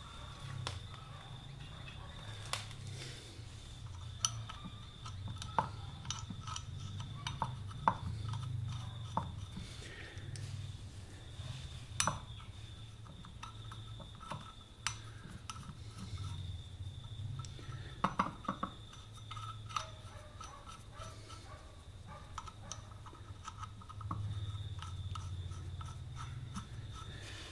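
Scattered metallic clicks and clinks as nuts are spun by hand onto the studs of a new rear sprocket on a Honda CB125E motorcycle's rear wheel hub, over a low steady hum.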